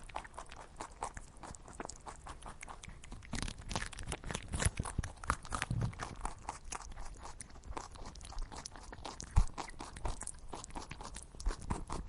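Rabbit crunching food, a fast, irregular run of crisp chewing clicks.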